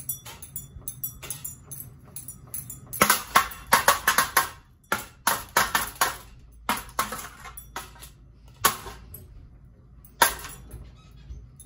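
Metal parts of a wrecked ceiling fan clattering and banging: a quick cluster of rattling knocks about three seconds in, then single sharp hits every second or so.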